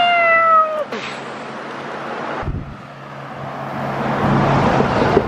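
Road traffic on a bridge with wind on the microphone: a short falling-pitched call from a person's voice at the start, then a vehicle's noise swelling as it approaches toward the end.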